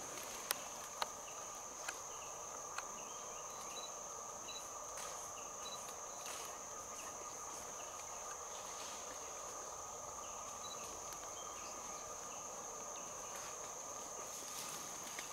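Steady high-pitched drone of rainforest insects, with a second, lower steady drone beneath it and faint short chirps over it. A few sharp clicks in the first three seconds.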